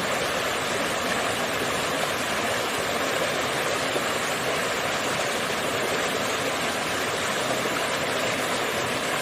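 Small waterfall splashing steadily, an even rushing of falling water.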